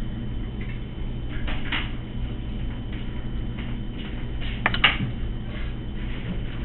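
A metal fettling knife cutting and scraping into soft clay, giving two short bursts of scraping, the second with a sharp click a little past the middle, over a steady low hum.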